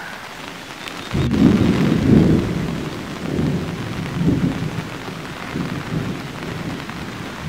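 Steady rain with a long roll of thunder that breaks in about a second in and rumbles on in several swells, loudest in its first two seconds.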